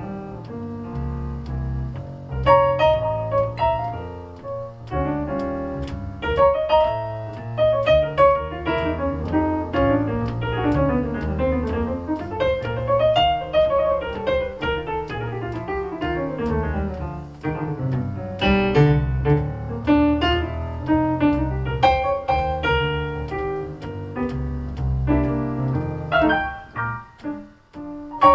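Solo keyboard playing with a piano sound: flowing melodic runs and arpeggios that rise and fall over sustained low bass notes.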